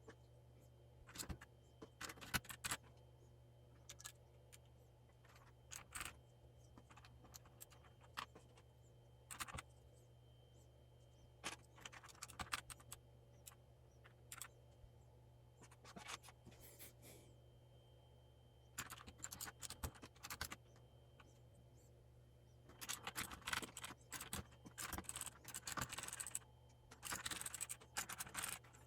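Faint, scattered clicks, taps and scraping as the parts of a mechanical keyboard are handled during repair, turning into a busier clatter near the end.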